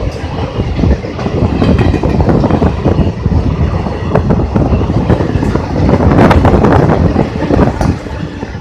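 Blue Indian Railways passenger coaches of an express train rushing past at speed: a dense rumble of wheels on rails with many sharp clattering knocks from the wheels. It is loudest about six to seven seconds in.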